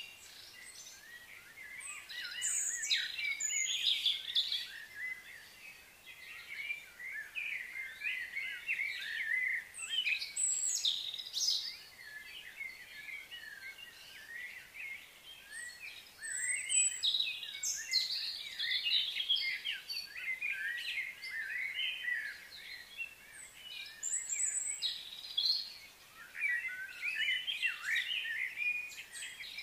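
Wild birds chirping and calling in a busy chorus of quick, high-pitched notes that overlap one another, thinning out briefly a few times.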